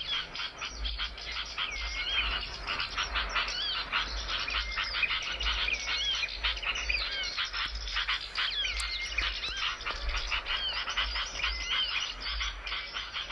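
Small songbird chattering without pause: a fast stream of short dry notes broken by repeated looping whistles that rise and fall.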